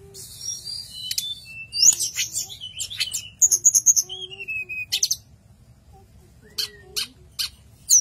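Caged hill blue flycatcher (tledekan gunung) singing: a quick run of high whistles, rising slurs and trills for about five seconds, then a few short, sharp notes.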